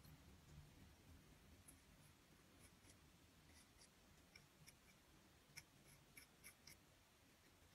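Faint, light scratches and ticks of a metal modelling tool working the surface of grogged stoneware clay, about a dozen in an irregular run starting about two seconds in.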